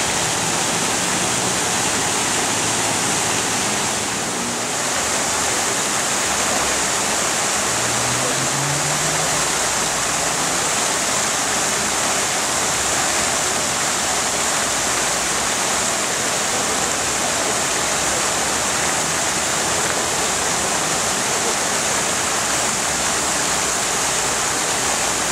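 A tiered ornamental fountain runs steadily: water sheets off its upper bowl and spouts from sculpted figures, splashing into the basin below in a continuous rush.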